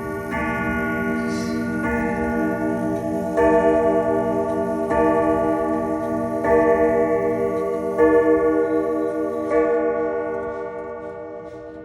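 Howard Miller 611-030 grandfather clock striking the hour: a deep, ringing stroke about every second and a half, seven in all, the last dying away near the end.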